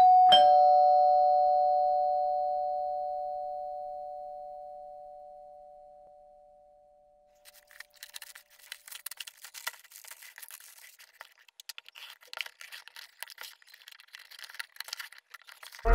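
A two-note chime, a higher tone struck then a lower one a moment later, rings out and slowly dies away over about seven seconds. Then, from about halfway in, plastic packaging crinkles and rustles as it is handled.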